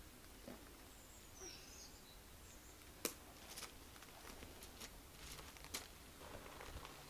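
Faint outdoor quiet. A bird chirps softly about a second in, then a few scattered clicks and crunches follow as small wellies step over dry leaves and conker husks.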